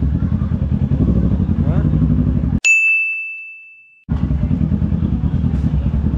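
Kawasaki Ninja 650's parallel-twin engine running steadily at low speed. About two and a half seconds in it cuts out abruptly for about a second and a half while a single bright bell-like ding rings and fades, then the engine sound resumes.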